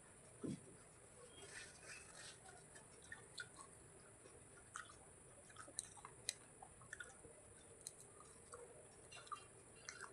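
Quiet close-miked chewing: irregular soft crunches and wet mouth clicks, with a low soft thump about half a second in.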